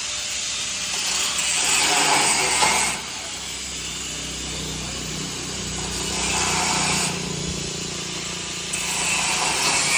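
A power tool working metal in three bursts of one to two seconds each, with a steady hum underneath.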